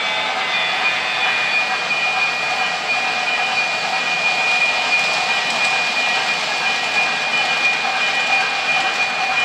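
Lionel O gauge Thomas & Friends Diesel locomotive pulling freight cars past on three-rail track: a steady rolling rumble of wheels and motor, with a steady high whine that comes in about half a second in.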